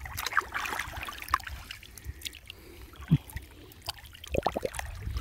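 Water dripping and sloshing around a person wading chest-deep while handling a net in the water, with scattered drips and small splashes.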